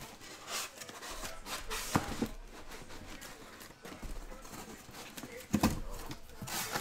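Cardboard case being unpacked by hand: rustling and scraping of cardboard and shrink-wrapped card boxes, with a few knocks as boxes are pulled out and set down. The loudest knocks come about two seconds in and again about five and a half seconds in.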